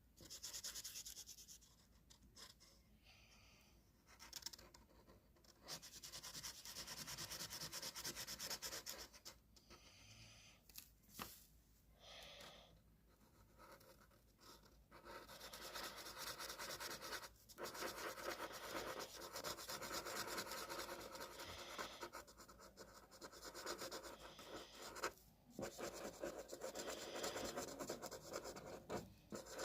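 Faint scratching of a drawing tool on paper, in strokes and stretches of a few seconds with short pauses between them.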